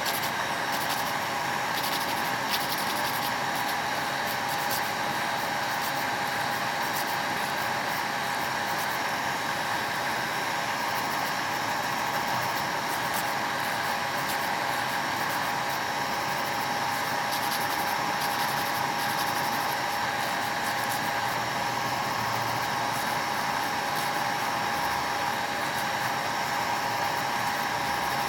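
Electric nail drill (e-file) running at a steady speed with a constant whine, its bit grinding lightly against the nail as the nail is shaped.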